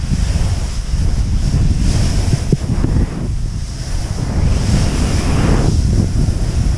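Heavy wind buffeting an action camera's microphone during a fast snowboard run, with the hiss of the board sliding and carving through snow swelling with the turns, most strongly about two seconds in and again near the end.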